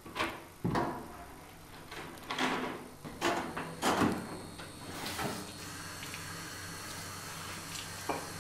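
A restroom door handle is turned and the door is opened, followed by a series of knocks and clunks. From about the middle a steady hum sets in.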